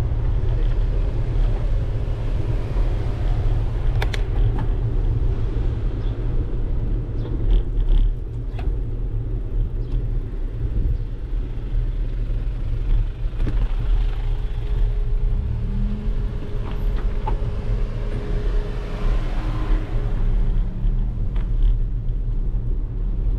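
Steady low rumble of wind buffeting and tyre-on-pavement road noise, picked up by a camera riding on a moving bicycle. A few small clicks and rattles from the bike come through.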